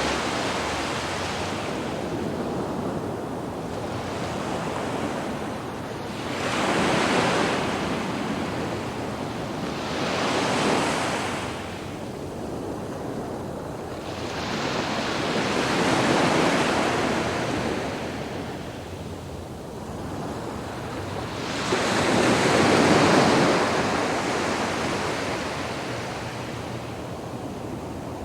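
Sea surf breaking and washing up a sandy beach in slow swells every few seconds. The loudest swell comes a little past twenty seconds in.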